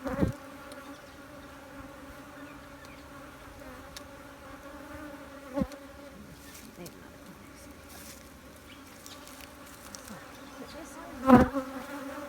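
Honeybees buzzing steadily around an opened hive, with a few sharp knocks, the loudest near the end.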